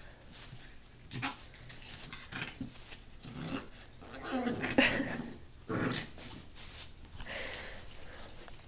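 Boxer puppy's short play growls and grunts while wrestling a cat, in irregular bursts that come thickest and loudest a little after the middle, with scuffling on the carpet.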